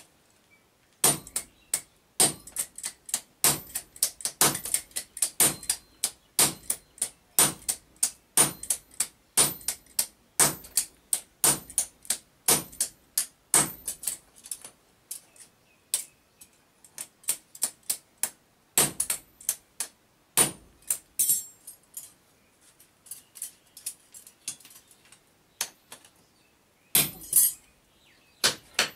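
Hand hammer striking a red-hot axe head on an anvil: a long run of sharp metal-on-metal blows, about two to three a second, lighter and more spaced out in the middle, with a loud cluster near the end.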